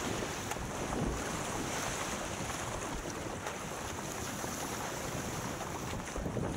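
Wind buffeting the microphone over the steady rush and splash of water as a surfski is paddled through choppy sea, with the paddle blades dipping and throwing spray on each stroke.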